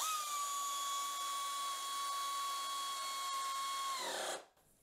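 Dynamic Power 3/8-inch pneumatic air ratchet, fed at about 90 PSI, running to drive a bolt back in: a quite loud, steady high whine over air hiss that starts suddenly, then drops in pitch and stops about four seconds in.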